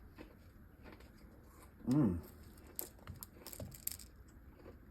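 Someone chewing a soft, chewy strawberry candy, with small wet clicks and crackles from the mouth. A short 'mmm' hum comes about two seconds in.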